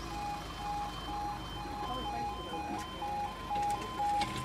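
Level crossing audible warning alarm sounding as the lights flash red, meaning the barriers are lowering for an approaching train. It beeps about twice a second, and a second, slightly higher tone joins about halfway, alternating with the first.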